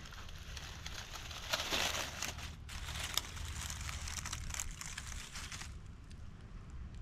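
Dry leaf litter crackling and rustling as a hand pushes through it and picks a morel mushroom. The crackling is busiest about two seconds in and dies away just before the end.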